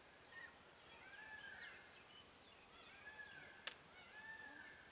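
Faint bird calls over quiet outdoor background: a repeated arched whistle about every second and a half, with short higher chirps between. One sharp click about three-quarters of the way through.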